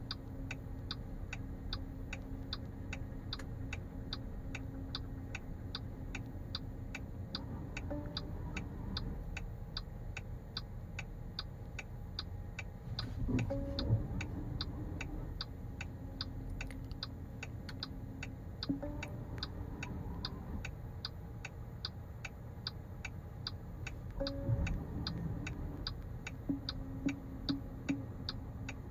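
Steady ticking about twice a second from a NIO electric car's turn signal while it parks itself. A low tone from the parking sensors comes and goes and turns into quick beeps near the end, and a short higher chime sounds four times.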